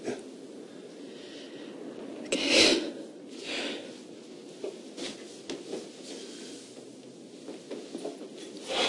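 A woman crying quietly: sniffs and unsteady breaths, the loudest about two and a half seconds in, over faint steady background noise.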